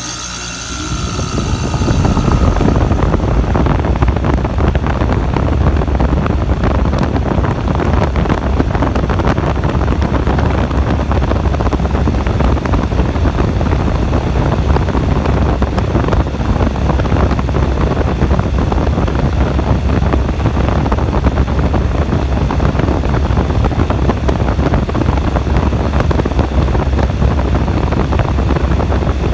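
Goodman packaged air conditioner starting up: the compressor and condenser fan have just come on and build up over the first couple of seconds, with a brief fading whine, then run steadily with a deep hum and rushing air from the fan.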